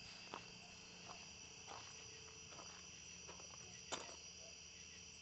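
Faint, steady chorus of crickets chirring in the night, with a couple of soft clicks, one shortly after the start and one about four seconds in.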